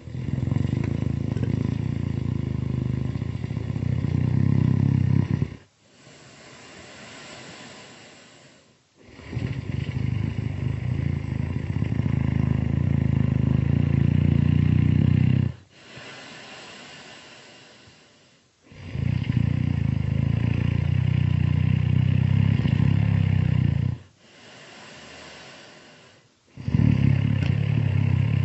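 Loud, slow snoring: long, low snores of about five seconds each, alternating with quieter breathy exhales of about three seconds. There are three full snores, and a fourth begins near the end.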